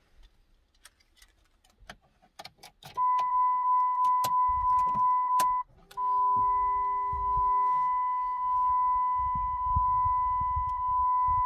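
Keys jingling and clicking, then about three seconds in a steady high-pitched electronic warning tone from the 2006 Dodge Ram's dash starts as the ignition is switched on. The tone breaks off once, briefly, partway through, then holds steady.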